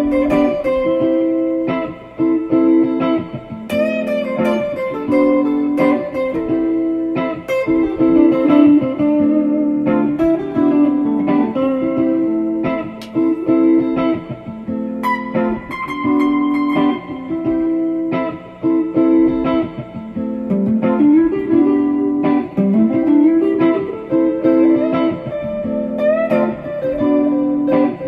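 Background music: a guitar plucking a melody over sustained chords, with a few notes sliding up in pitch about two-thirds of the way through.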